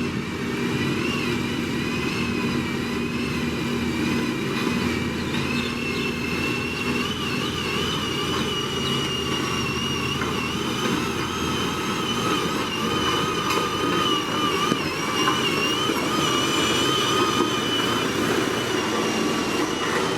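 Heavy diesel road-construction machinery running steadily: a continuous engine rumble with a high, wavering whine over it.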